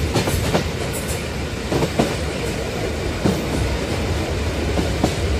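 Mauritania's iron ore freight train rolling along, heard from on top of a loaded ore wagon: a steady rumble of the wagons with a few sharp, irregular clanks.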